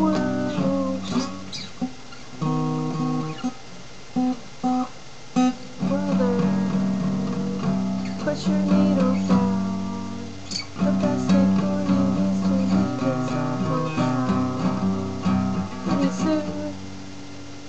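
Acoustic guitar music: a song playing from a computer, with a beginner's guitar strummed along. The chords break off and restart several times about two to six seconds in, then run on more fully with a wavering melody over them.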